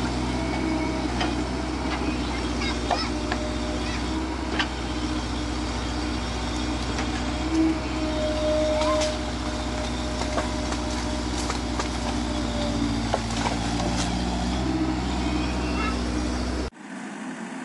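Komatsu PC78US-6 mini excavator's diesel engine running steadily under load, with scattered cracks and knocks as its bucket works a tree stump out by the roots. About a second before the end the sound drops abruptly to a quieter, thinner engine sound.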